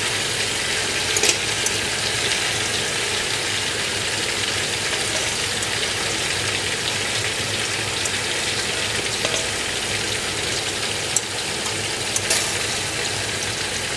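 Pot of water at a rolling boil, a steady bubbling hiss as soaked rice is tipped into it, with a few faint clicks of the spatula against the steel bowl.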